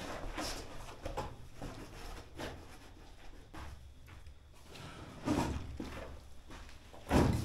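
Camping gear being handled and set down on a hard floor: irregular knocks, scrapes and rustles, with two louder thumps, one about five seconds in and one just before the end.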